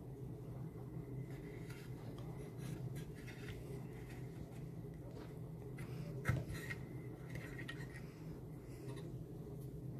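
Faint handling of wound copper wire by hand: small rustles and scrapes, with one sharper click about six seconds in, over a steady low hum.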